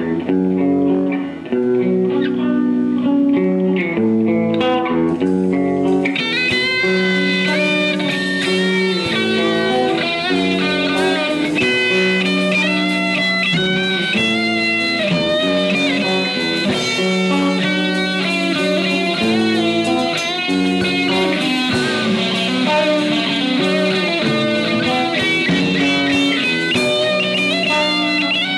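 Live band playing an instrumental passage: electric guitar over a drum kit, with a higher melody line of notes joining about six seconds in.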